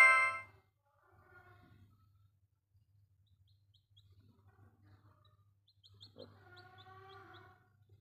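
A music jingle ends in the first half second. Then a newly hatched chick peeps faintly a few times, short high chirps, and about six seconds in a broody hen gives a soft, low, wavering call lasting over a second.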